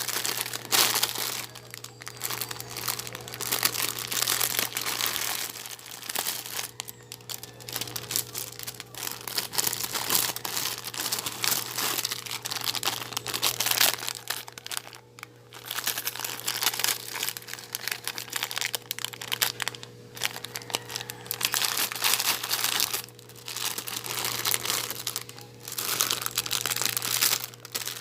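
Packaging crinkling and rustling in irregular bursts as a parcel of supplies is handled and unwrapped, with a few short pauses. A steady low hum runs underneath.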